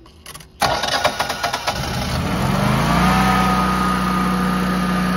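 A few light clicks, then about half a second in the engine of a Generac air-cooled home standby generator cranks and fires. Its pitch rises for about two seconds and settles into a steady run, the generator starting with a new mixer assembly and stepper motor fitted.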